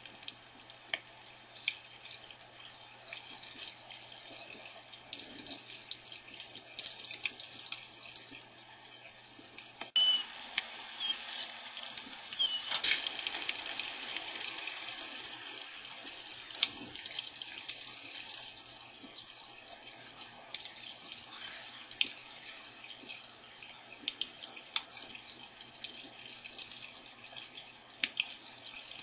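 Water running steadily, like a tap into a sink, with scattered small clicks and splashes; it gets louder about ten seconds in.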